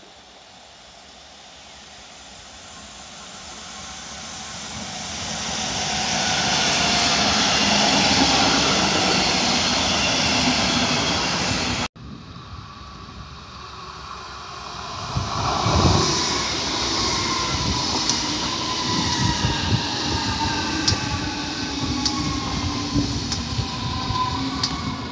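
Red S-Bahn electric multiple units passing on the line. First one is heard approaching, its rumble and rail noise swelling to a peak. Then, after a cut about halfway, one runs past close by with a wheel-on-rail rumble, a whine falling gently in pitch and a run of sharp clicks near the end.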